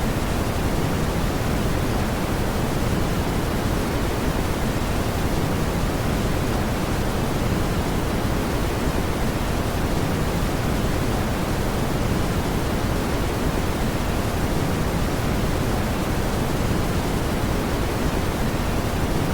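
Brown noise: a steady, even rushing hiss weighted toward the low end, with no change or break.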